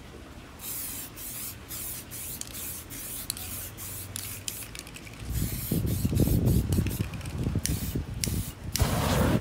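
Aerosol spray paint can hissing in a run of short puffs. From about five seconds in a louder low rubbing sound joins it, and near the end comes one longer, louder spray.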